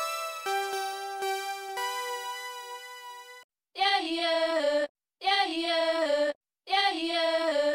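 Homemade electronic music: a synth melody of short keyboard-like notes that stops about three and a half seconds in. After a brief gap come three separate voice-like synth notes, each about a second long, whose pitch bends up and then down, with short silences between them.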